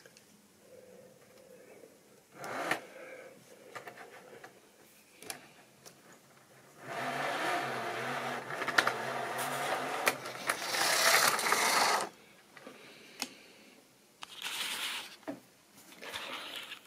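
Small electric motor of a model railway locomotive whirring for about five seconds, starting about seven seconds in, with scrapes and clicks from the model being handled on the track before and after.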